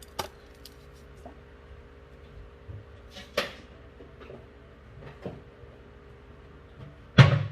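A few light knocks and clicks of kitchen things being handled, then a louder knock near the end like a cupboard door shutting, over a faint steady hum.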